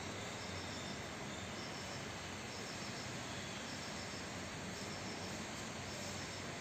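Insects chirping: a high, evenly pulsing call that keeps going over a steady background hiss.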